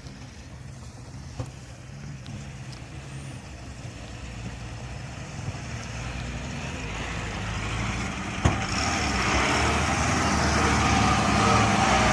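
A 4x4 off-road vehicle's engine running, growing steadily louder as it approaches, with engine and tyre noise rising most in the last few seconds. A single sharp knock about eight and a half seconds in.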